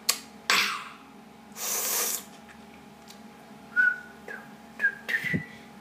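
Heavy breaths out after fast rapping, the loudest a long hissing exhale about two seconds in. Near the end come a few short, high-pitched whistle-like squeaks.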